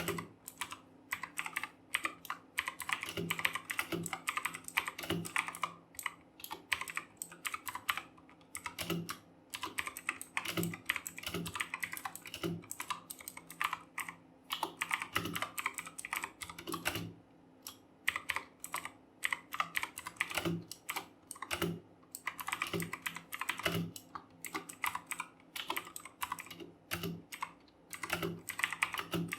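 Fast typing on a RedGear Chameleon mechanical keyboard with clicky Kailh Blue switches: a rapid, continuous run of sharp key clicks mixed with duller low knocks, broken by a few short pauses.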